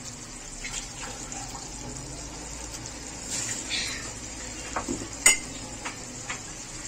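Minced meat and pea curry simmering in a wok, a steady noise, with small clicks and patters as sliced green chillies are dropped in. A sharp click comes about five seconds in.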